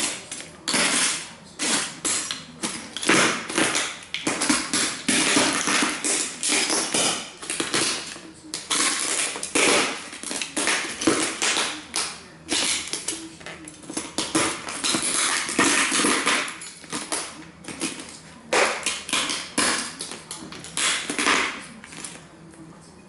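Cowboy boots stomping and grinding on the broken fragments of model train buildings, a dense, irregular run of crunches and crackles with brief pauses, quieter near the end.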